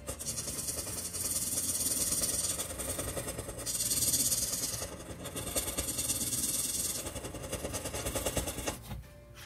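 Marker nib scribbling back and forth on paper: a fast, scratchy hiss of short strokes in several runs with brief pauses, stopping near the end.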